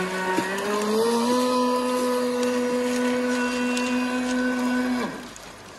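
Traxxas Blast RC boat's electric motor whining steadily at speed on the water. Its pitch steps up about a second in as the motor speeds up, holds, then falls away near the end.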